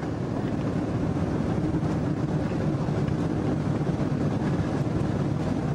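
Steady engine and road rumble from a moving vehicle, heard from inside it, mostly low in pitch and unchanging throughout.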